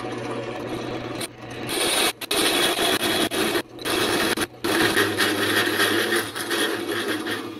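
Drill press running with a hole saw cutting through the wall of a square steel tube. A steady motor hum at first, then from about two seconds in a loud grinding screech of the saw teeth in the steel, which stops briefly three times and eases off at the end.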